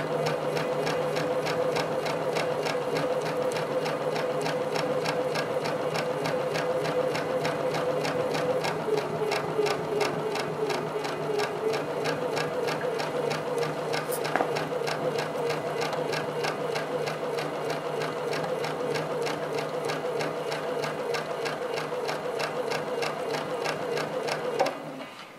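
Domestic sewing machine running steadily while free-motion quilting through a quilt with a spring-loaded hopping foot, its needle strokes in a rapid, even rhythm. It stops just before the end.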